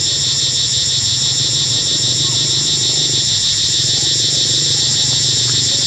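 A dense chorus of cicadas: a steady, high-pitched shrill drone that pulses rapidly.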